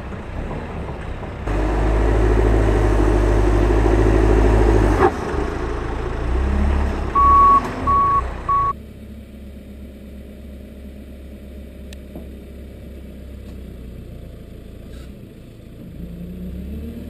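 Manitou MT 1335 telehandler's diesel engine running, loud and hard from about a second and a half in, then three short beeps of its reversing alarm; after the beeps the engine carries on at a quieter, steady note.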